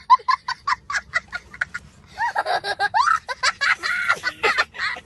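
High-pitched laughter: a quick string of short clipped laughs, then wavering squealing laughs over the last few seconds.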